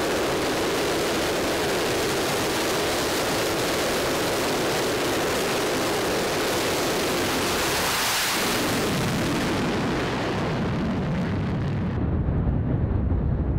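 F-35C's Pratt & Whitney F135 turbofan running at high power while the jet is held on the electromagnetic catapult. About eight seconds in, the catapult launches it and its noise sweeps past and fades. Near the end comes a deep rumble as the jet climbs away.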